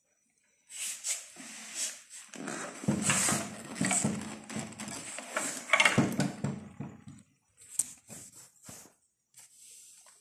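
A cat making a low, drawn-out growl-like sound for several seconds, mixed with rustling and scuffling against a handbag. A few light clicks and taps follow near the end.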